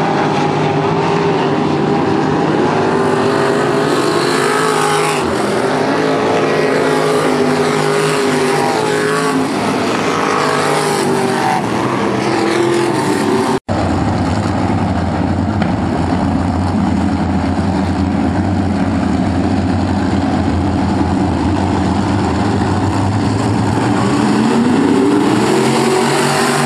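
Sprint car V8 engines on a dirt oval. In the first half a single car's engine rises and falls as it laps. After a momentary gap in the sound about halfway, a pack of cars runs together, with one engine revving up near the end.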